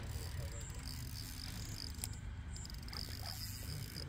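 Insects buzzing in a steady high-pitched drone that breaks off about two seconds in and resumes, over a low outdoor rumble.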